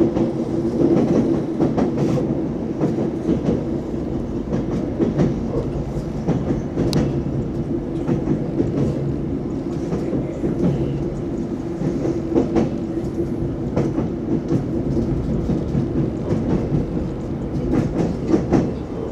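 ES2G "Lastochka" electric train running along the track: a steady running hum with the wheels clacking irregularly over rail joints, one sharp click about seven seconds in.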